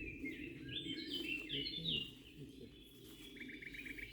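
Songbirds singing: a run of short whistled notes stepping up and down in the first two seconds, then a fast trill of repeated notes near the end, over a steady low background noise.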